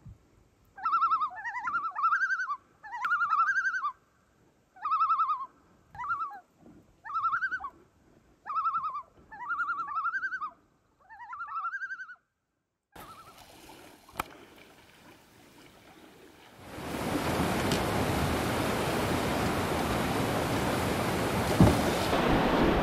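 Common loons calling across a lake: a run of short wavering calls, about one a second, that stops about twelve seconds in. A few seconds later a steady rush of fast river water sets in and is the loudest sound.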